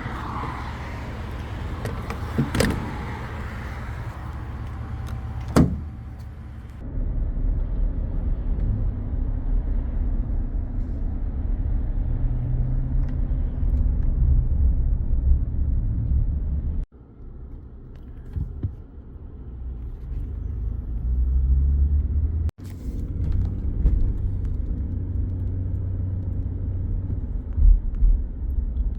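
Car travelling, heard from inside: a steady low rumble of engine and road. In the first few seconds there are a few sharp knocks or clicks before the rumble settles in.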